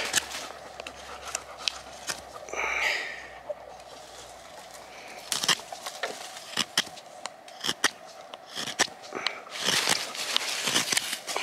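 Benchmade Leuku 202 knife carving wood: irregular sharp clicks and short scraping strokes as the blade cuts and pares.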